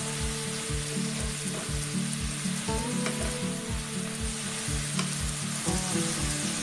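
Bean sprouts, carrot and chili stir-frying in a hot nonstick wok: a steady sizzle with the scrape and toss of a spatula stirring the vegetables. Background music with a steady beat runs underneath.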